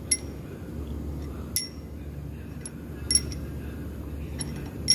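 Metal tools and engine parts clinking: about five sharp metallic clinks, a second or so apart, each with a short bright ring, over a low steady hum.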